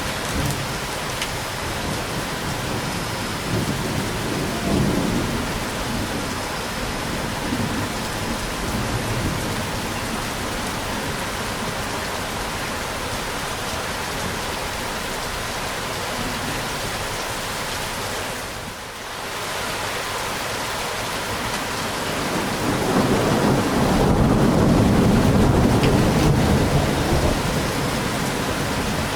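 Steady rain with rolling thunder. Low rumbles come in the first few seconds, and a longer, louder rumble builds about two-thirds of the way through and lasts several seconds.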